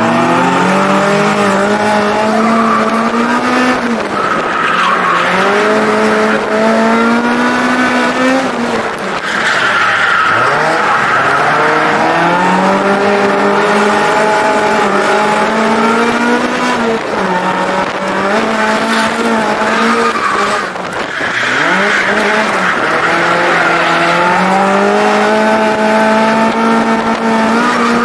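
Eunos Roadster NA6CE's bored-out four-cylinder engine with individual throttle bodies, breathing through a 60 mm Car's C'z plus one muffler, revving hard under full throttle while drifting, heard from the open cockpit. Its pitch climbs, drops back and climbs again several times, with sharp lifts about ten seconds in and again about twenty-one seconds in, and the tyres squeal through the slides.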